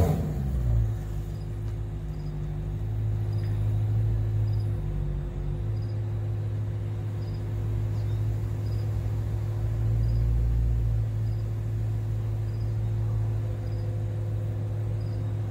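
BMW M3 idling steadily with a low, even hum from its Borla exhaust. A faint high chirp repeats about once a second over it.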